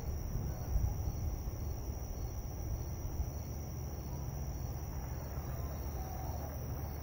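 Night insects, crickets, chirping in a steady high trill over a continuous low rumbling background noise.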